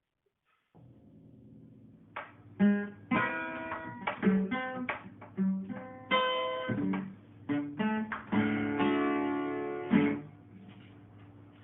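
Guitar played alone: plucked notes and strummed chords start about two seconds in and ring out near the end.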